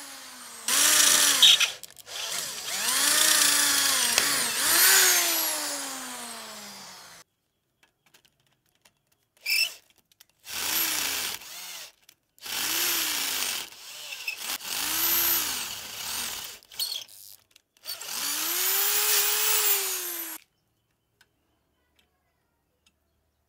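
Handheld electric drill whining as its bit bores into a steel bar, the motor pitch rising and falling as the trigger is squeezed and eased. It runs in several bursts with short pauses between, and stops a few seconds before the end, leaving silence.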